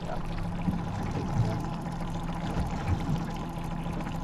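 Outboard motor idling with a steady hum, with water trickling and splashing against the boat's hull.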